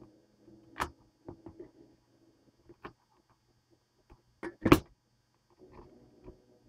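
Phone parts being handled on a hardcover book: a string of sharp clicks and knocks as a smartphone's plastic frame and a loose sheet of screen glass are picked up and set down. The loudest is a sharp knock just under five seconds in.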